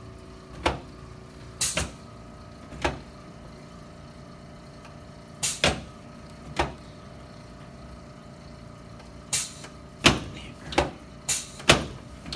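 About a dozen sharp mechanical clacks during a chiropractic treatment, at uneven spacing and coming faster in the last few seconds, over a faint steady hum.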